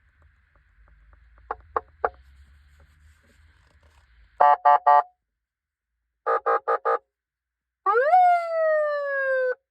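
CJB 125K electronic siren module running through its tones. A few sharp clicks come first, then a burst of three short beeps and a burst of four quicker beeps. Near the end a siren wail jumps up and slides slowly down for about two seconds before cutting off.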